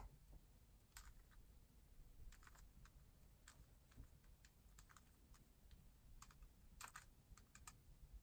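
Faint, irregular plastic clicks of a 3x3 Rubik's cube's layers being turned by hand through a sequence of quick moves.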